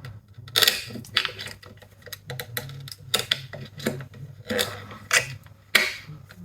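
Pliers clicking and scraping on metal while an oil plug on an air compressor is loosened, about seven sharp clicks spread over several seconds, over a faint steady low hum.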